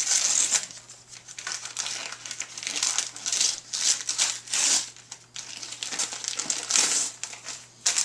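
Gift wrapping paper being torn and crinkled off a present box, in irregular rustling bursts.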